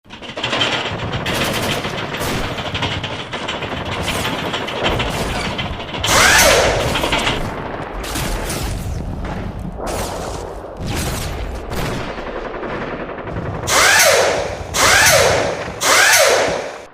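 Layered foley sound effects: a dense, rapid clatter, joined by loud bursts that fall in pitch, once about six seconds in and three times in quick succession near the end, cutting off abruptly.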